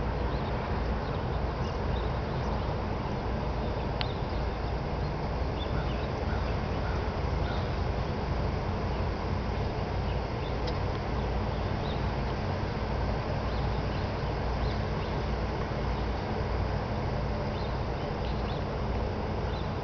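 Steady low outdoor rumble, with faint short bird chirps scattered through it.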